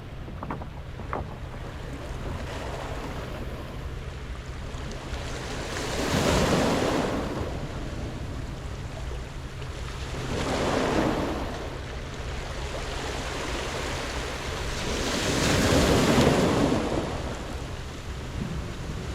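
Sea waves washing onto a pebble beach: three waves surge in and draw back, about five seconds apart, over a steady wash of surf.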